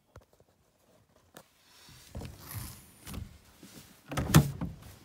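A hatch being pushed open from inside a truck bed: scraping and rustling, then a loud clunk about four seconds in.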